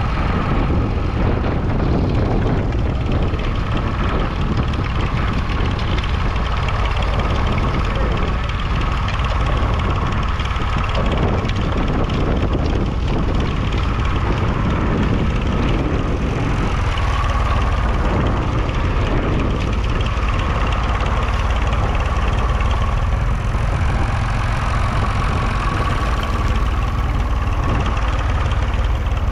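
1969 Massey Ferguson 20 Industrial's 2.5-litre three-cylinder diesel engine running steadily, loud and without a break.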